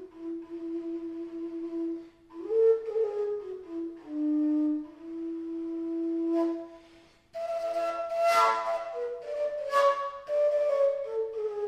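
Fujara, the long Slovak overtone flute, playing a slow folk melody in long held low notes, with brief breaks between phrases; about two thirds of the way in it jumps to a run of higher, breathy overblown notes before settling low again.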